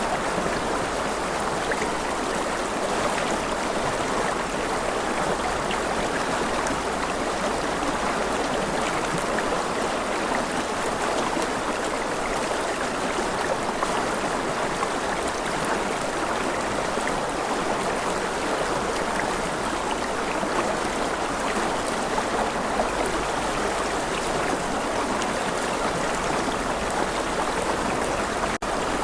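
Steady running water like a stream, an even rushing and trickling that drops out for an instant near the end.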